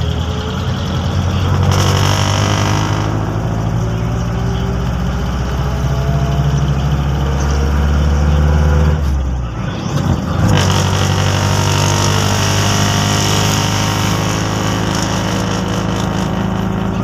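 Jeepney engine running with a steady low note as it drives along the road, with road and wind noise over it. The engine note breaks off briefly about nine seconds in and picks up again a second later.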